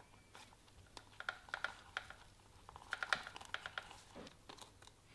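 Faint clicking and rustling of plastic wiring connectors and wires handled by nitrile-gloved hands as an EXUP eliminator is plugged into the motorcycle's wiring loom. The irregular small clicks cluster between about one and four and a half seconds in.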